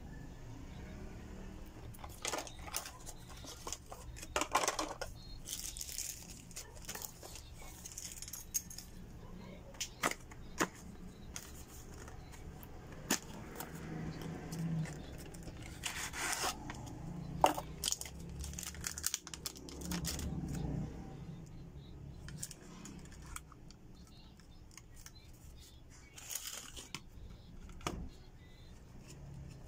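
Unboxing handling noise: a cardboard box opened and its clear plastic packaging tray rustling and crinkling, with scattered sharp clicks and taps as the plastic folding phone stand is handled on a table.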